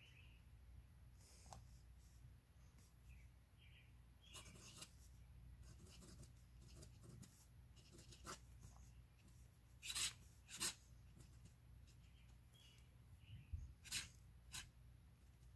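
Fountain pen nib scratching faintly across paper as it writes in short strokes, with a few sharper scratches about ten and fourteen seconds in.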